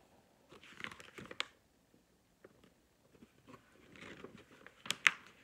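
Pages of a large paperback workbook being turned and handled: paper rustling and crinkling in two bouts, about a second in and again near the end, each ending in a sharp crisp snap of the page.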